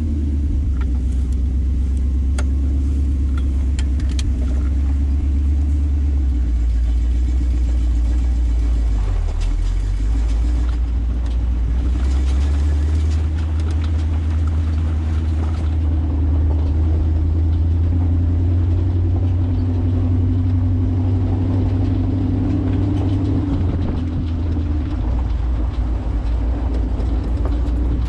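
Jeep CJ-7 engine running while the Jeep is driven, a loud, steady low rumble whose note shifts a few times.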